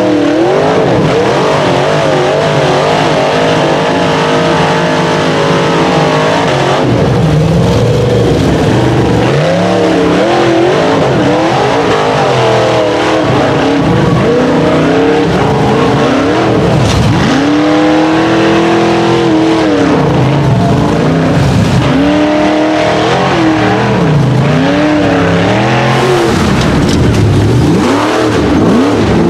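Rock bouncer buggy engines revving hard over and over, the pitch swinging up and down as the drivers work the throttle to claw up a slick, muddy hill climb. Near the end the tyres spin in the mud.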